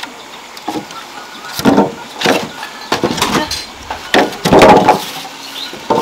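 Sawn wooden planks knocking and clattering against one another as they are shifted, in several separate knocks about a second apart, the longest near the end.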